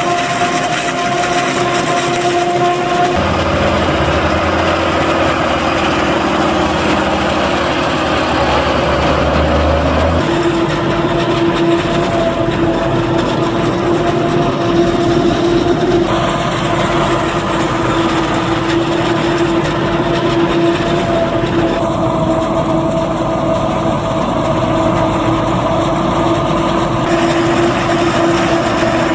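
Claas Jaguar 950 forage harvester running steadily under load while chopping maize, a constant engine-and-machinery hum. The sound changes abruptly several times.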